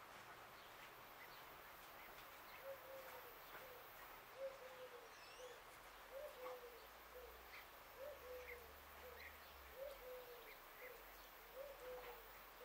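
A dove cooing faintly, a three-note phrase with a longer middle note, repeated about every two seconds from a few seconds in. Faint chirps of small birds come between the phrases.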